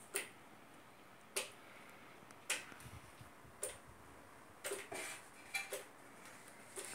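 Water dripping from a leaking split-type aircon indoor unit: faint, sharp drops landing about once a second, sometimes two in quick succession.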